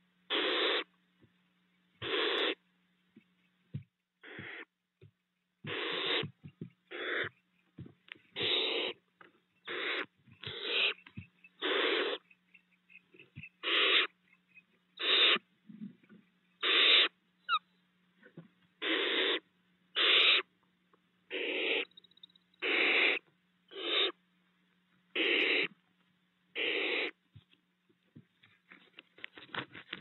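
Barn owl owlets giving harsh hissing 'snore' calls, about twenty in a row at roughly one a second, the food-begging call of nestling barn owls. Faint clicks between the hisses, with a quick run of them near the end.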